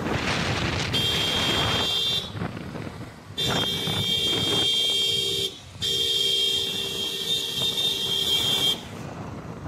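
A vehicle horn sounding in three long, steady blasts, the last one about three seconds long, over wind rush on the microphone from riding along the road.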